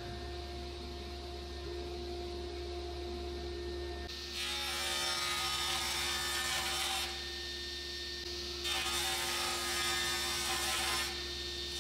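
Minimax sliding-table panel saw running with a steady hum while its blade cuts through a wooden board in two passes, about four seconds in for nearly three seconds and again from about nine to eleven seconds.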